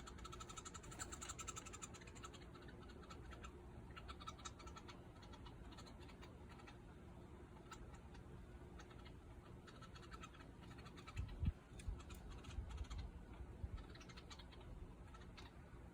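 Woodpecker pecking at wood: faint, irregular clusters of short sharp taps, with one louder low thump about eleven seconds in.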